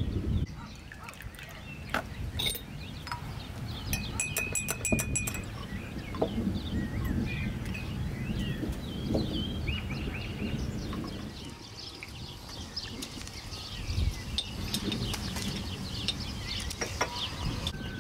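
Outdoor farmyard background: a goat or sheep bleats once, a pulsing call lasting about a second and a half, some four seconds in. Short bird chirps come and go throughout, with occasional light clinks of glass and tableware.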